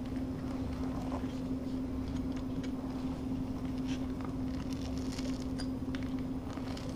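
Knife blade scraping and cutting into a vinyl floor plank: faint, scattered scratchy scrapes over a steady low hum.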